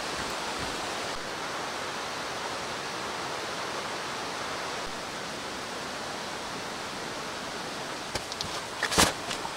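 Steady rushing of a nearby mountain stream. Near the end come a few sharp clicks and a short rustle, the loudest about nine seconds in.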